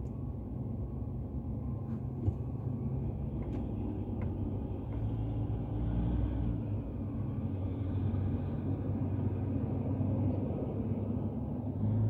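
Steady low rumble of a car's engine and road noise inside the cabin while driving, with a single small click about two seconds in.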